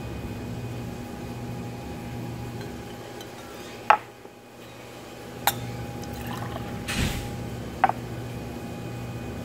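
A clear solution is poured from one glass beaker into another to mix the two solutions, with a splash of pouring liquid about seven seconds in. Sharp glass clinks come from the beakers being handled, the loudest about four seconds in and others near five and a half and eight seconds, over a steady low hum.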